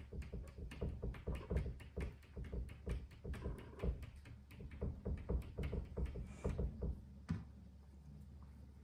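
A Bengal cat's claws scratching and tapping rapidly at a door, about five or six strikes a second, stopping about seven seconds in with one sharper knock.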